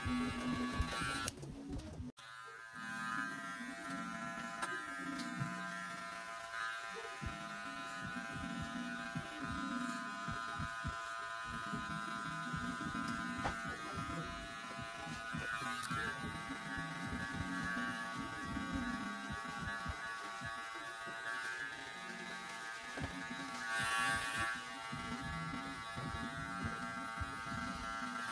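Cordless electric hair clipper buzzing steadily as it cuts a taper fade along the neckline and around the ear, with a brief break about two seconds in.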